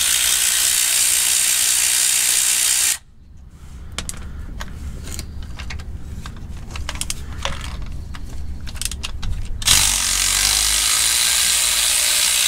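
Cordless power ratchet with a half-inch socket spinning out the bolts of a rear differential cover. It runs steadily, stops about three seconds in, and gives way to a stretch of light clicks and taps. It runs again from about ten seconds in.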